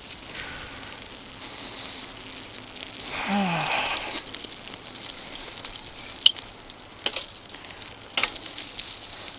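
Mountain bike tyres rolling over dry leaves and dirt singletrack, a steady crackling rush. A brief falling-pitched sound comes about three seconds in, and a few sharp knocks from the bike come in the second half, the loudest around six seconds in.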